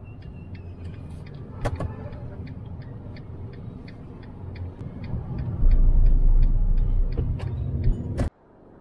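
Car driving on a road: a steady low rumble with a light ticking about three times a second. The rumble grows louder past the halfway point and cuts off suddenly near the end.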